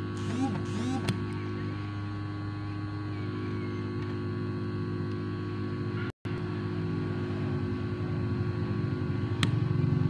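Hot air rework station blowing a steady hum of hot air onto the circuit board, heating the burnt IC to desolder it. A sharp click about a second in and another near the end, and the sound cuts out for a moment about six seconds in.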